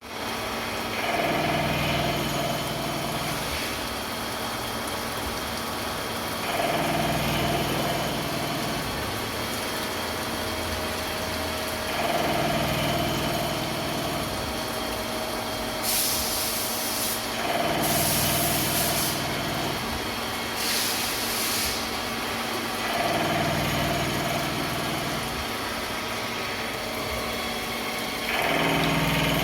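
CNC vertical milling machine cutting a part. The running sound swells with a tone in it roughly every five and a half seconds as the cutter makes repeated passes, and there are three short hissing bursts near the middle.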